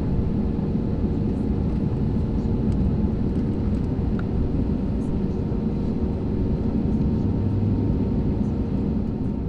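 Steady low cabin rumble inside an Airbus A320neo taxiing on the ground, engines at low taxi power, with a steady hum running through it.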